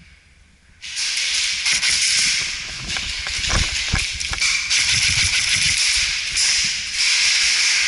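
A loud rustling hiss starts abruptly about a second in and keeps going, with a few scattered low thumps in the middle.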